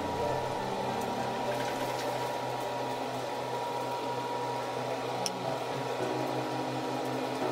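Steady whirring and humming from a kitchen appliance fan. Soft piano music comes back in about six seconds in.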